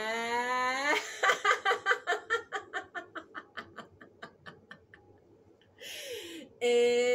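A woman's voice holding a long vowel sound with a slowly rising pitch, then breaking into rhythmic laughter of about four or five "ha"s a second that fades away. After a breath in, a second held vowel begins near the end.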